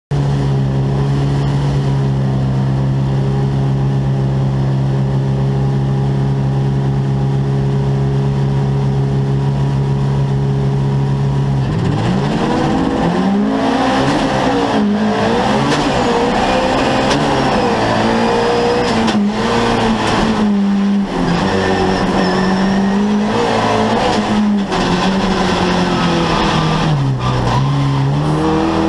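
Volkswagen Beetle race car's air-cooled flat-four engine heard from inside the cockpit, held at steady revs for about twelve seconds as if on the start line, then dipping and climbing again and again as the car races.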